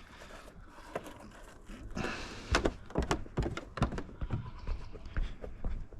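A run of irregular knocks and thuds, starting about two and a half seconds in after a faint rustle.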